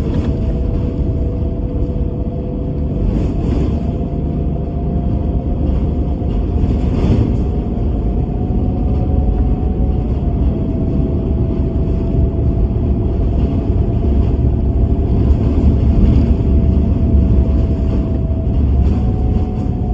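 Bus interior during the ride: steady low engine and road rumble, with a faint whine holding a near-constant pitch and a few brief rattles.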